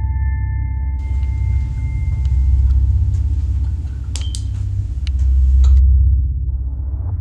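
Deep rumbling drone of a horror film score, swelling and fading, with a ringing tone dying away in the first second. Over it, from about a second in, a faint hiss with a few sharp clicks and knocks that cut off suddenly near the end.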